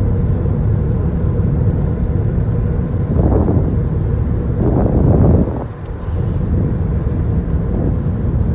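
Steady road and tyre noise inside a car cabin at freeway speed on a wet road, with two louder swells of noise about three and five seconds in.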